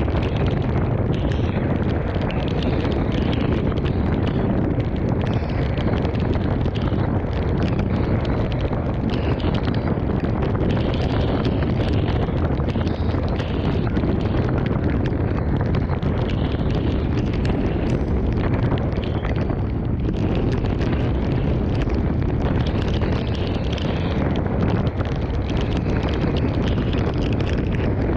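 Thunderstorm wind blowing hard and steadily across the microphone, with a dense patter of heavy rain over it.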